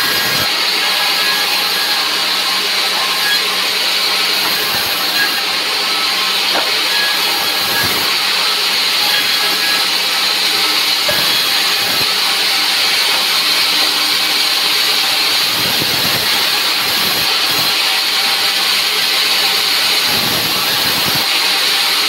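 Vertical band saw running and resawing dry timber: a loud, steady, high hiss of the blade through the wood over a steady motor hum. A few dull knocks come from wood pieces being handled on the saw table.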